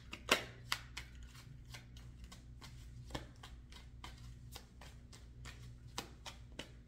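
Tarot cards being shuffled and handled: irregular crisp card flicks and snaps, the sharpest about a third of a second in, over a faint steady low hum.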